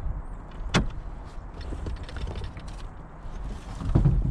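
Knocks and clatter of gear being handled in an aluminium boat: a sharp click about three quarters of a second in, small scattered clicks, and heavy hollow thumps against the hull near the end.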